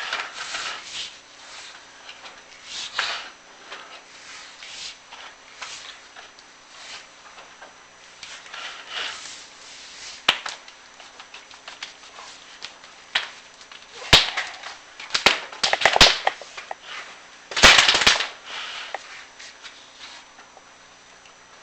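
Chimney inspection camera and its cable scraping and knocking against clay flue tile as they are lowered down a furnace flue: irregular rubbing and scraping with sharp clicks, the loudest clatter coming in clusters in the second half.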